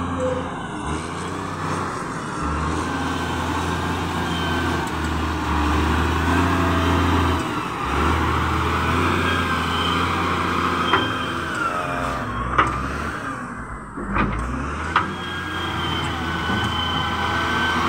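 SDLG wheel loader's diesel engine running under load as it pushes and levels dirt, with a high whine that rises and falls with the revs. Several sharp knocks come about two-thirds of the way through.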